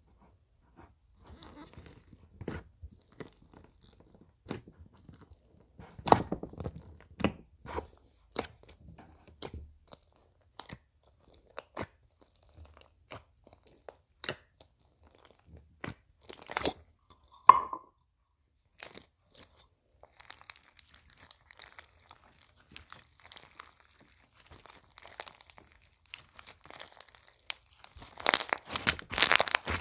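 Crunchy slime being pressed and squeezed by hand, giving scattered sharp pops and clicks. It builds into dense, louder crackling near the end, with one brief squeak about halfway through.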